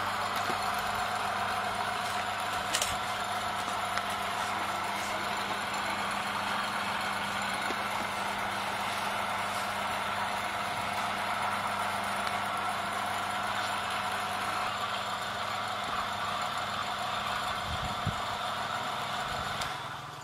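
Electric motor belt-driving two car alternators, running steadily with a constant hum and whine; the sound dies away near the end as the rig is switched off.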